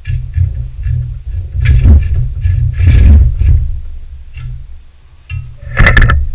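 Hand hacksaw cutting a metal part clamped in a bench vise: uneven rasping back-and-forth strokes over a heavy low rumble, with a louder sharp clatter near the end as the saw comes out of the cut.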